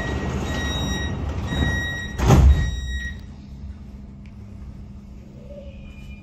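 Munich U-Bahn type C2 train's door-closing warning beeps, then the sliding doors shut with a loud thud a little over two seconds in; the noise drops once they are closed.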